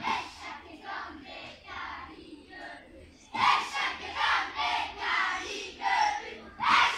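Group of primary-school children chanting a haka in unison: rhythmic shouted phrases that get much louder about halfway through.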